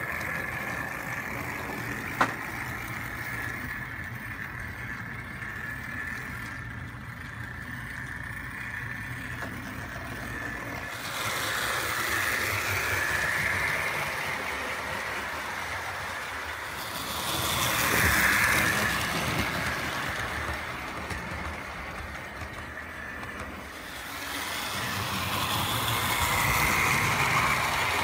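Model train running on the layout: the electric motor of a model steam locomotive whirring steadily, with wheels rumbling over the track. It swells louder several times as the train passes close, with one sharp click about two seconds in.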